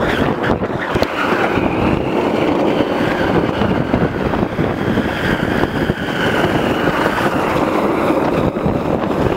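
Wind buffeting the microphone of a moving camera, over the steady roll of longboard wheels on asphalt.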